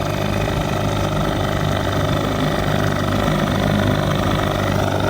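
25 hp Johnson two-cylinder two-stroke outboard motor running steadily, seeming to fire on both cylinders now that its loose spark plug boot connection has been re-crimped.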